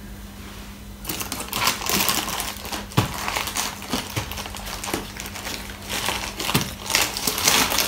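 Rustling and crinkling of fingers rubbing cornflour into a dog's long coat and pulling a knot apart close to the microphone, starting about a second in, with a few sharp clicks, over a faint steady hum.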